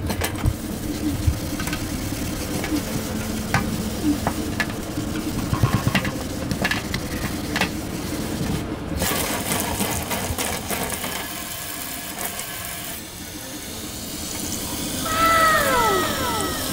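Tap water running into a stainless steel sink while a sponge scrubs the basin, with scattered light knocks against the metal. Near the end a few short falling whistle-like tones sound over it.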